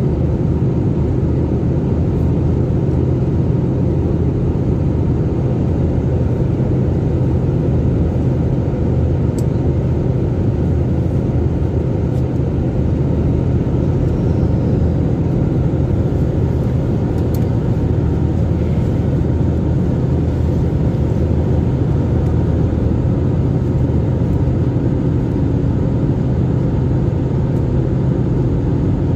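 Steady cabin noise of a passenger plane in flight: an even, unbroken rumble of engines and airflow with a low hum.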